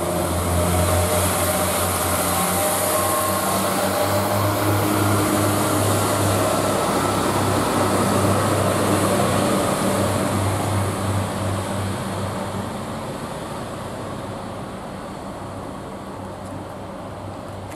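Class 142 Pacer diesel railbus pulling away. Its underfloor diesel engine runs with a steady low note, then fades over the last several seconds as the unit draws away.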